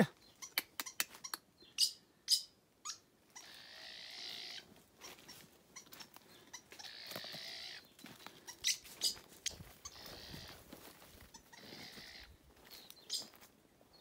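Rustling and crackling in dry leaf litter, in patches about a second long, with many short sharp clicks and brief high chirps scattered through.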